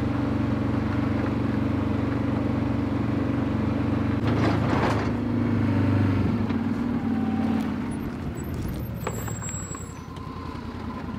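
A vehicle engine idling steadily with a low, even hum, with a few short clattering knocks about four and a half and nine seconds in; the hum is quieter near the end.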